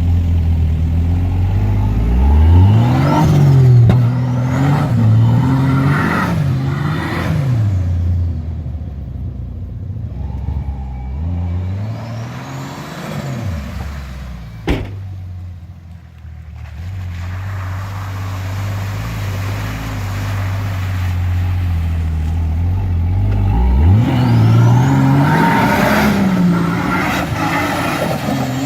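Turbocharged Nissan TB42 4.2-litre straight-six petrol engine revving hard in repeated surges, pitch rising and falling, in three bouts with steadier running in between. A single sharp crack about halfway through.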